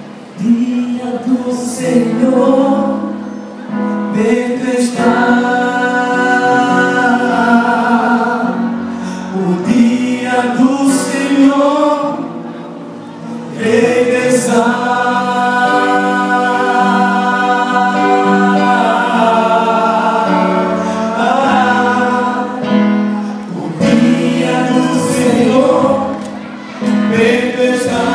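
A male vocal group singing a song in close harmony through microphones and a PA loudspeaker, holding long chords with brief breaks between phrases.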